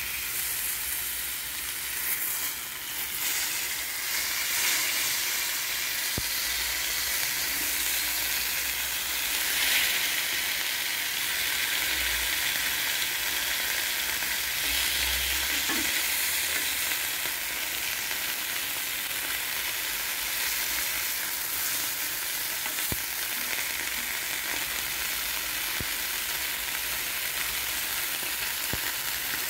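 Beef tenderloin steaks sizzling steadily in a hot ridged grill pan with olive oil, the steaks being seared on their edges.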